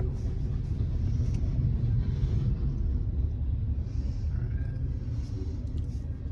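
Steady low rumble of a long freight train rolling past, with a few faint clicks.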